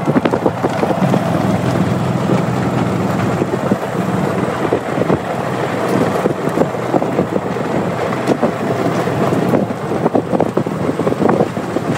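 A vehicle driving: steady engine and road noise heard from on board, with wind on the microphone.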